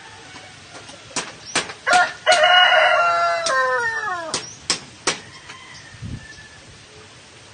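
Rooster crowing once, a call of about two seconds that drops in pitch at the end, with several sharp claps before and after it.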